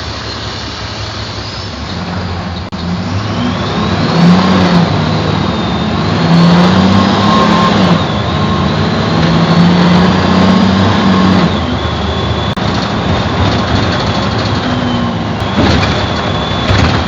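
Mercedes-Benz OF-1724 bus's OM 926 LA six-cylinder turbodiesel accelerating under load, its pitch climbing and dropping back several times as it shifts up, with a high whistle rising and falling over it. The engine eases off about two-thirds of the way through.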